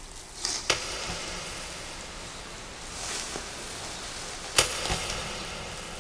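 Dry dead leaf falling and landing: a light swish that ends in a sharp, crisp tick just under a second in, then a second swish and sharp tick about four seconds later, over a faint papery hiss.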